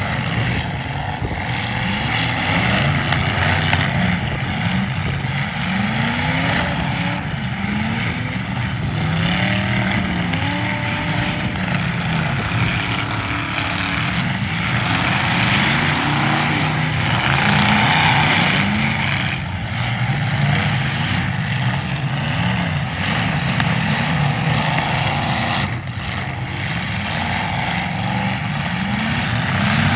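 Several demolition derby car engines revving up and down over and over, their pitches rising and falling across one another over a steady rush of noise.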